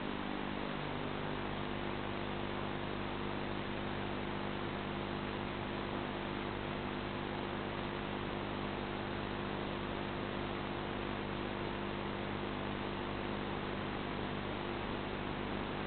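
Steady electrical hum with several fixed tones over an even hiss, unchanging throughout: the noise floor of an FPV video receiver's recorder rather than any sound from the plane.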